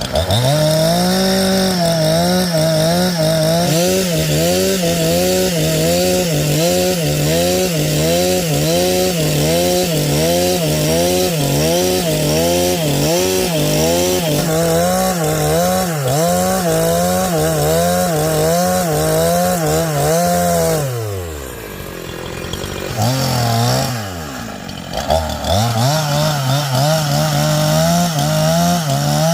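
Two-stroke chainsaw cutting a log into boards at full throttle, its engine pitch wavering under the load of the cut. About twenty seconds in it drops to idle, then revs back up and cuts again.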